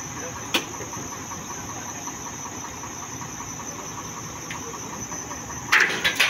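A heavy recovery truck's engine running steadily while it lifts the stricken truck, under a continuous high chirring of crickets. A sharp click about half a second in, and a loud harsh burst of noise near the end.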